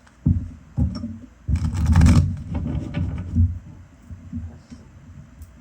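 Tarot cards being handled and laid out on a table: two short knocks, then a longer stretch of rustling, sliding and tapping that dies away.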